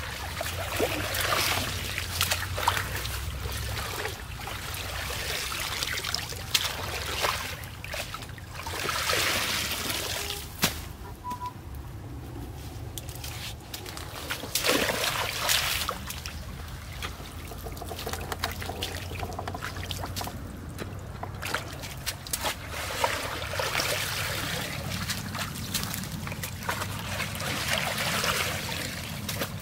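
Shallow, muddy stream water sloshing, splashing and trickling in uneven bursts as hands, feet and a woven bamboo fish trap are worked through it.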